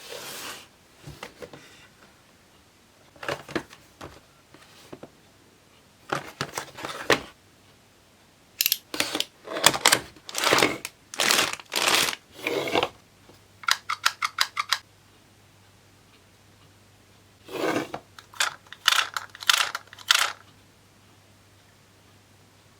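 Toy packaging being handled and opened: bursts of tearing, rustling and crinkling, with a quick run of small clicks about two-thirds of the way through and quiet pauses between.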